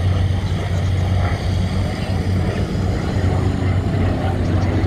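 V12 piston engines of a Spitfire and a Hurricane droning steadily, with a strong low hum.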